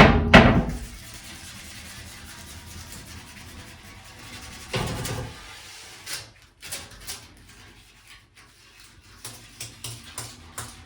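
Cleaning sounds at a shower door seal: a loud handling knock at the start, a louder noisy rush about five seconds in, then a run of short scratchy strokes from a small brush working at the seal in the second half.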